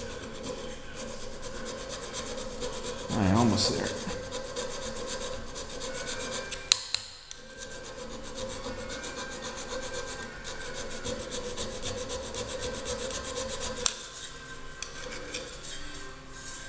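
Hand file worked back and forth in steady strokes over a silicon bronze weld, filing the high spot down. There is a louder, wavering stretch about three seconds in, and two sharp clicks, about halfway through and near the end.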